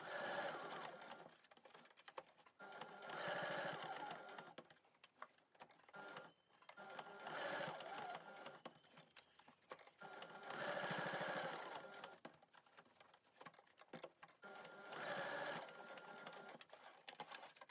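Electric domestic sewing machine stitching in about five short runs of one to two seconds each, with pauses between them. This is the pattern of sewing a small reinforcing square with a cross through it, stopping to turn the fabric at each corner.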